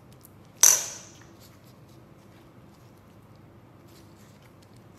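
A single sharp metallic clink with a brief ring, about half a second in: a metal spoon striking the stainless steel mixing bowl as it is set down.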